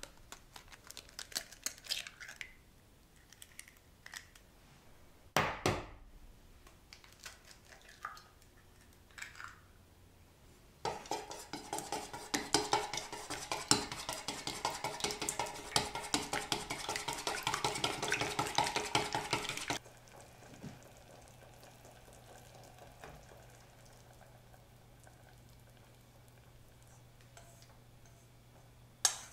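Wooden chopsticks beating eggs in a stainless steel bowl: a fast, dense run of clicks against the metal lasting about nine seconds. Before it come scattered clinks and one sharp knock about five seconds in.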